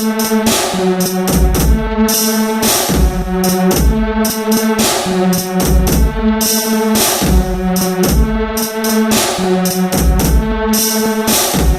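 Instrumental electronic music: sustained pitched chords over a drum kit beat, with regular deep bass hits and repeating percussion in a steady rhythm.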